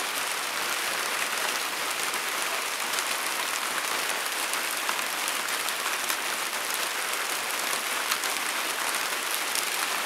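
Steady rain falling on garden plants and bare ground: an even hiss with scattered faint drop ticks.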